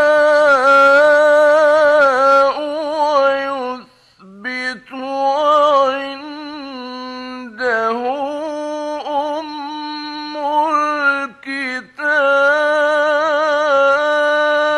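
Male Quran reciter chanting in the ornamented Egyptian mujawwad style, drawing out long melismatic notes whose pitch wavers and glides. He sings in several long phrases with short breaks for breath, from an old radio recording.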